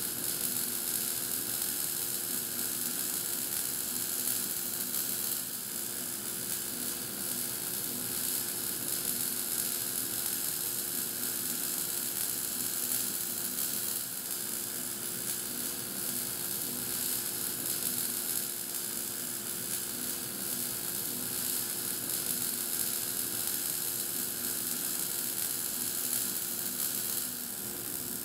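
Wire-fed (MIG) welding arc of a Climax BW3000 automatic bore welder, a steady sizzling crackle as the rotating torch lays weld inside the bore, with a steady low hum underneath. The crackle drops a little about a second before the end.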